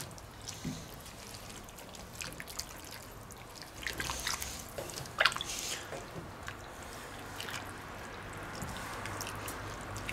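Wooden spoon stirring a thick, wet meat-and-vegetable stew in a cast-iron Dutch oven: liquid squelching and dripping with scattered clicks, the loudest of them about five seconds in.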